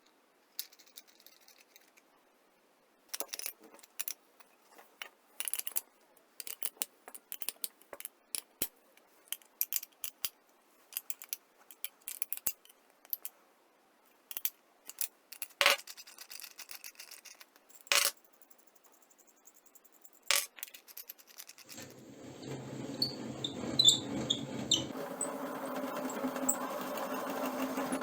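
Scattered clicks and clinks of small metal parts being handled. About three quarters of the way through, a small electric motor starts and runs steadily, changing pitch once.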